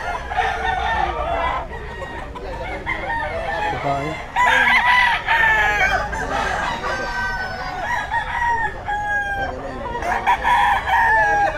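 Several roosters crowing, their long calls overlapping one another, the loudest crows coming about four seconds in.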